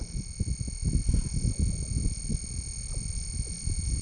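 Irregular low rumbling and knocking, like wind or handling on the microphone, over a steady high-pitched electronic whine.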